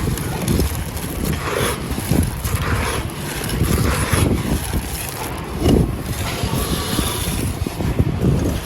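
Dry clay and gritty sand being crumbled and crushed close to the microphone: a continuous gritty crunching with irregular heavier crunches, the strongest a little past the middle.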